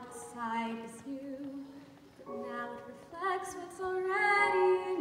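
A young woman singing a Broadway show tune live, with a small pit band playing underneath, holding a long note near the end.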